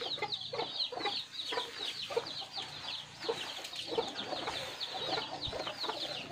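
Chickens clucking, with a steady stream of short, high, falling chirps, several a second.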